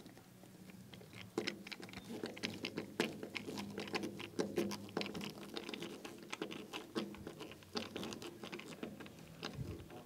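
Hand screwdriver driving screws through a plastic mounting bracket into a water filter head: a busy run of small irregular clicks and scrapes as the screws are turned tight.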